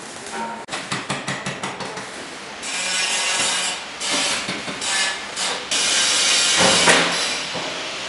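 Three-roll plate bending machine rolling a mild-steel sheet into a cylinder. A quick run of metallic clicks comes first, then a loud rushing, scraping noise in several stretches as the sheet passes through the rollers.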